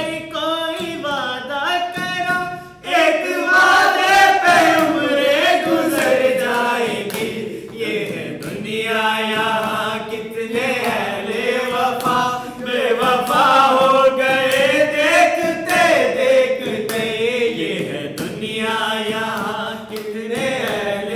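A group of male voices sings a qawwali unaccompanied, in long held notes that bend up and down, with hand claps keeping time.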